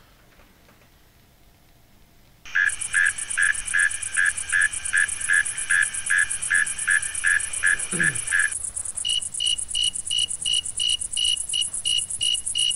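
Crickets chirping in a steady, even rhythm of about three chirps a second over a fast high trill, starting suddenly about two and a half seconds in after near silence. The chirp changes to a higher pitch about eight and a half seconds in.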